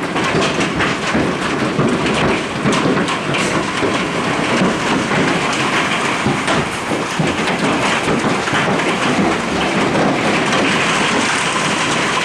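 A storm of large hailstones and heavy rain pelting down, with a dense, steady hiss broken by many sharp cracks of hailstones striking hard surfaces.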